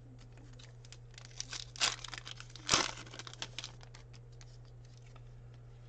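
Foil trading-card pack wrapper crinkling and tearing as it is opened by hand: a run of crackles starting about a second in, with two louder rips near the middle, over a low steady hum.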